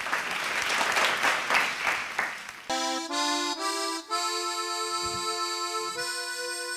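Audience applauding; about two and a half seconds in the applause stops and the dansktop band's song intro begins with reedy, accordion-like held chords that change a few times and then hold.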